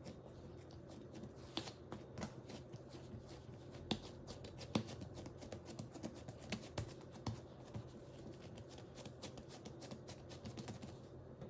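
Hands folding and pressing soft, tacky tangzhong milk-bread dough on a silicone baking mat: faint, irregular sticky pats and small clicks, over a steady low hum.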